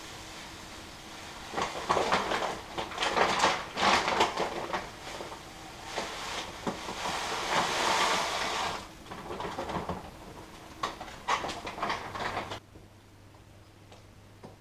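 Clear plastic bag of crushed malt crinkling and rustling as the grain is tipped out into the mash tun and the bag is shaken empty. The crinkling stops about two seconds before the end, leaving a low steady hum.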